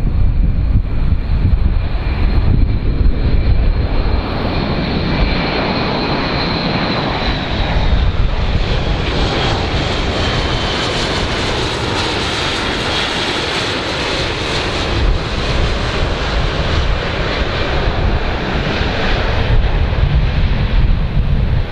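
Airbus A400M's four turboprop engines running as the aircraft flies low past: a steady roar with a high whine that drifts slightly lower, fullest about halfway through. Low wind rumble on the microphone near the start and end.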